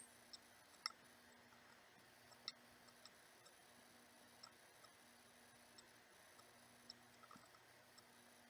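Near silence with a few faint, irregularly spaced small clicks, about one every second or two.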